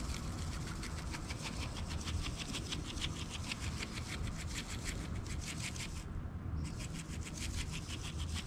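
Shaker bottle of dry chicken rub shaken rapidly over a raw chicken, the granules rattling about five or six times a second, with one short pause about six seconds in.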